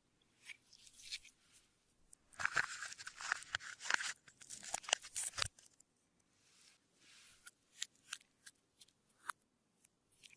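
Clear slime being worked by hand, giving sticky clicks and crackles. A dense run of crackling starts about two seconds in and lasts about three seconds, followed by scattered single clicks.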